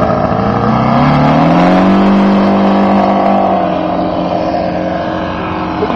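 Robart R780 seven-cylinder radial engine of a scale model Fairchild PT-23 opening up to full throttle for takeoff, its pitch rising over about a second and a half, then running steadily at full power and easing slightly as the plane climbs away.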